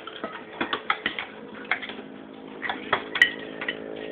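Spoon and fork clinking and scraping against a plate as a toddler eats, in scattered irregular clicks with a sharper clink about three seconds in, over a steady low hum.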